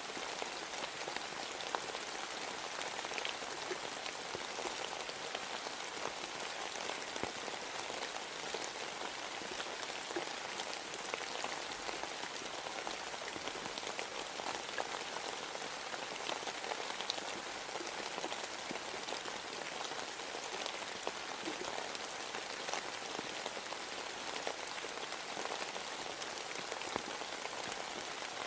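Steady rain, an even hiss with individual drops ticking through it.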